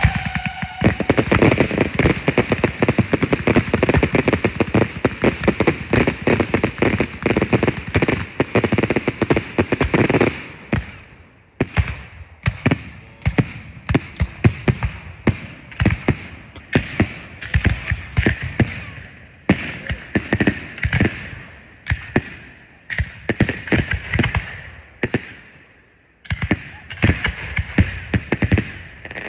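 Ground-fired consumer fireworks going off. For about the first ten seconds there is a dense barrage of rapid crackling bangs. After that come sparser volleys of shots and crackle over a steady hiss of sparks. The firing thins to a short lull shortly before the end, then starts up again.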